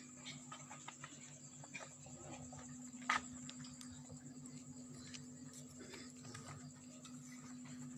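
Quiet lull: a steady low hum and a faint high whine run on, with scattered small clicks and one sharper click about three seconds in.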